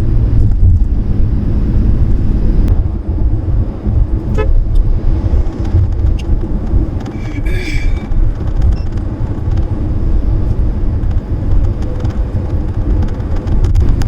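Road vehicle in motion: steady low engine and road rumble, with a short horn honk about seven and a half seconds in.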